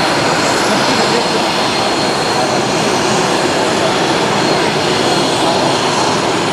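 Northrop F-5 fighter's twin General Electric J85 turbojets running at taxi power: a steady jet roar with a thin, high, steady whine over it.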